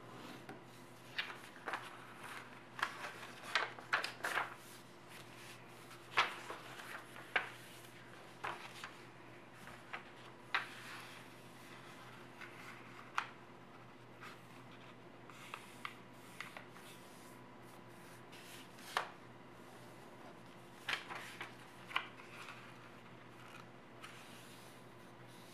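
A square sheet of 80 g/m² origami paper rustling and crackling as hands fold it and press the creases flat. Irregular sharp crinkles come in clusters, busiest in the first few seconds and again near the end, with quieter sliding rubs between them.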